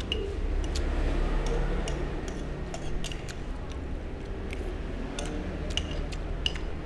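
Metal spoon and fork clinking and scraping against a ceramic plate while scooping up rice, in quick irregular clicks, over a low steady hum.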